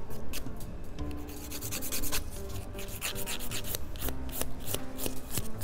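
Hand nail file scraping across the edges of natural fingernails in short, unevenly spaced strokes, about two a second, to shape them.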